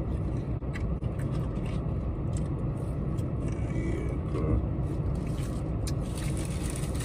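Steady low rumble of a car idling, heard inside the cabin, with a few faint clicks over it.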